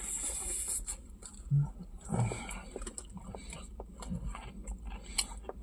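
A person chewing a mouthful of chicken burger close to the microphone, with many short wet mouth clicks and soft thuds.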